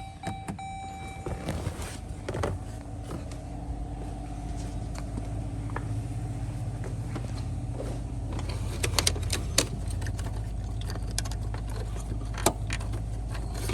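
Scattered sharp clicks and taps of hands working at the engine bay, typical of the fuel pump relay being plugged back into the fuse box, over a steady low hum. The clicks come more often about nine seconds in.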